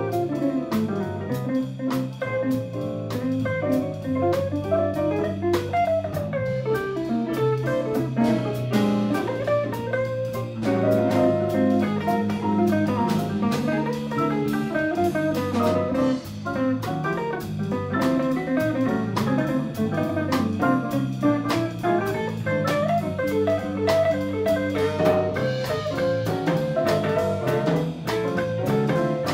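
Live jazz-funk band playing: an archtop electric guitar carries the melody over electric bass, piano and a drum kit keeping a steady beat.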